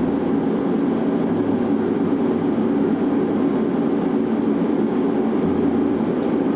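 Steady airliner cockpit noise on final approach: airflow and engine drone, with a low hum that fades in and out.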